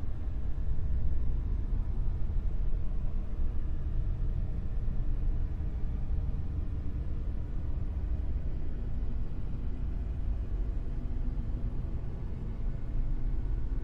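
Dark noise: a steady, deep rushing hiss with most of its weight in the bass and little in the treble, swelling and easing only slightly.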